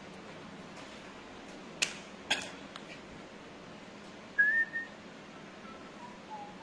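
Pruning shears snipping through bamboo skewers with two sharp cracks about half a second apart. A few seconds later come a few short whistled notes; the first is the loudest and highest, and the later ones are fainter and lower.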